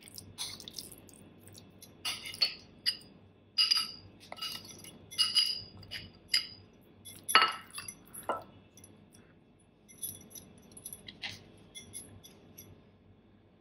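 Metal spoon scraping and clinking against a glass mixing bowl and a ceramic bowl as thick grated-mango pickle is spooned out: irregular sharp clinks with a glassy ring, a few louder knocks among them, tapering off near the end.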